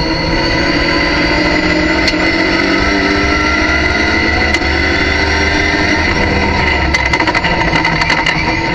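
Race car engine pulling hard in third gear, heard from inside the cockpit, its pitch rising over the first few seconds and then holding steady. A patter of short clicks and knocks comes near the end.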